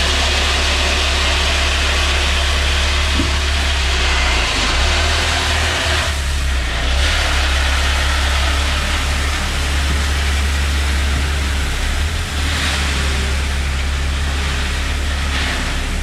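Dump truck's engine running steadily under load while its load of gravel slides out of the raised bed with a continuous rushing hiss.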